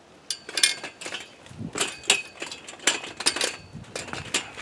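A string of sharp metallic clinks and knocks, several of them ringing briefly, as metal strikes metal, most likely the crowbar or tools against the fence while the logs are being pried.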